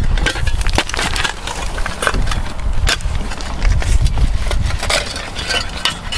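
Logs and timber being pulled off a woodpile by hand: wood knocking and scraping, with many sharp cracks and snaps, over a steady low rumble on the microphone.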